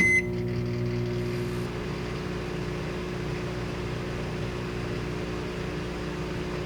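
Microwave oven starting: a click and a short beep, then a steady electrical hum as it runs.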